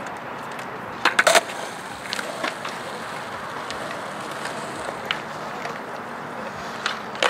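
Skateboard on concrete: a steady rolling rumble, with a quick cluster of sharp clacks about a second in and a few lighter knocks later, the last near the end.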